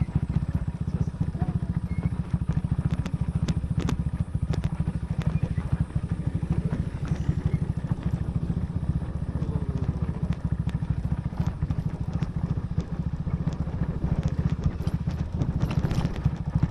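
Motorcycle ridden along a rough gravel road: a steady low rumble of engine and wind on the microphone, with scattered clicks and rattles.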